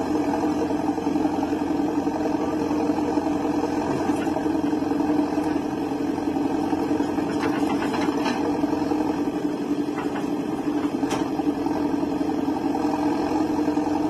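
JCB 3DX backhoe loader's diesel engine running steadily as the machine works, with a few faint knocks here and there.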